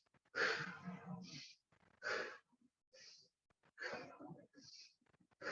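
A woman's audible out-breaths: three breathy, sighing exhalations about a second and a half apart, each trailed by a short hiss, breathing out in time with loose arm swings.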